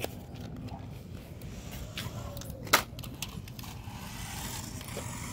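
A sharp knock a little under three seconds in, then a toy RC car's small electric motor whining faintly as the car drives on concrete from about four seconds in.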